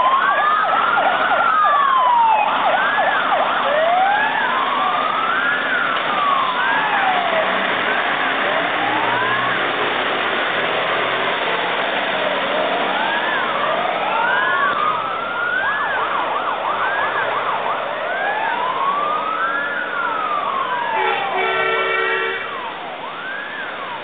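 Several fire engine sirens sound at once: one slow wail rising and falling every few seconds, overlapped by other sirens sweeping faster. A short horn blast sounds near the end, and then the sirens grow quieter.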